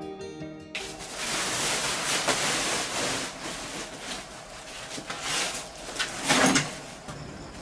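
Woven plastic feed sacks rustling and scraping as they are handled and loaded into a wheelbarrow. There are irregular knocks throughout and a louder burst about six seconds in. Plucked-string music cuts off abruptly less than a second in.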